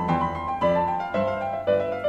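Background piano music, a steady flow of struck notes.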